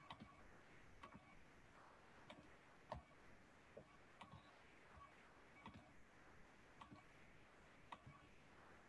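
Near silence: quiet room tone with faint, short clicks at uneven intervals, roughly one a second.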